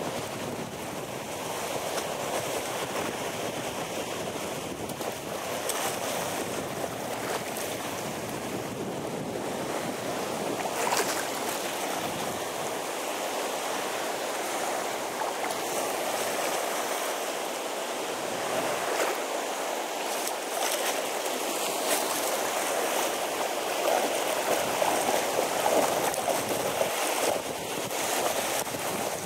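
Shallow water lapping and washing over a pebble shore, with splashing from a dog wading and dunking its head in the water.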